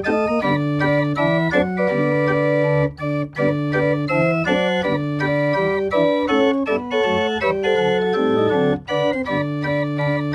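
Homemade continuo chest organ playing by itself, its keys pressed by electromagnets under MIDI control: several pipe notes sound at once, with the chords and melody changing every half second or so and a few short breaks between phrases.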